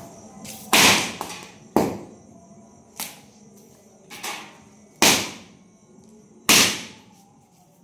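Misfired firecrackers going off in a diesel-soaked bonfire of old rags, six sharp bangs at irregular intervals about a second apart, each with a short fading tail, one of them softer.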